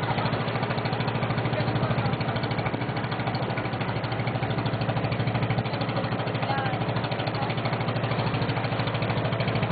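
Small boat's engine running steadily, a fast, even chugging that does not change.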